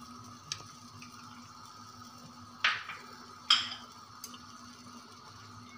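Kitchen utensils clinking twice, a little under a second apart, as a spice glass and steel pot tongs are handled beside a clay handi, over a faint steady hum.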